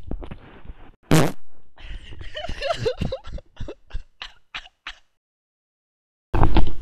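A person farting during a bout of diarrhoea: a loud burst about a second in, then a string of short sputtering, squeaky noises, a pause, and another loud burst near the end.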